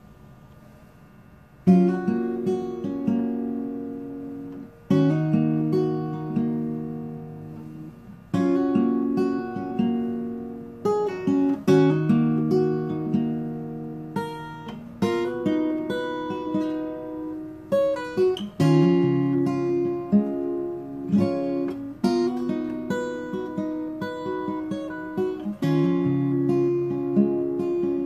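Acoustic guitar strumming chords that ring on, moving to a new chord about every three and a half seconds. It starts about two seconds in.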